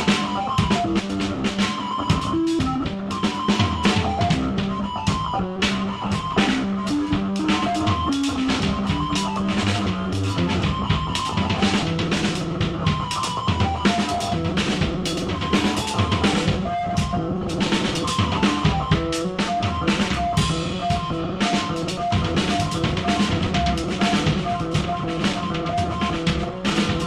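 Live noise music from a Casio keyboard and drum kit duo: the drums are hit in a dense, rapid stream while the Casio plays short repeated notes.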